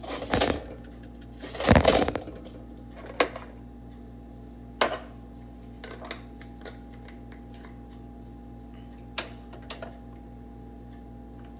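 Scattered knocks and clatters from kitchen handling: spice jars and hands against the enamel roasting pan and counter, loudest in a cluster about two seconds in. A steady low hum sits underneath.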